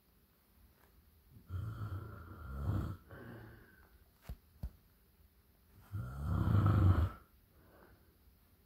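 Loud snoring: two long, rattling snores a few seconds apart, the second louder, with two faint clicks between them.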